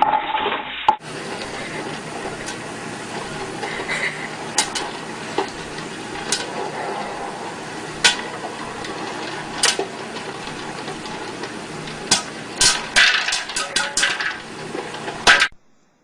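Household clatter: scattered sharp knocks and clicks over a steady noisy background, with a quick run of them near the end before the sound cuts off.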